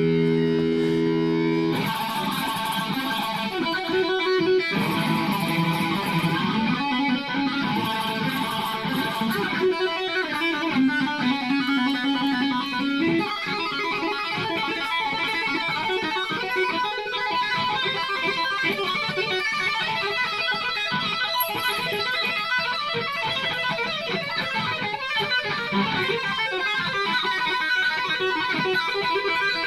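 Electric guitar through an amplifier: a held chord about two seconds long, then fast lead runs played with two-hand tapping on the fretboard.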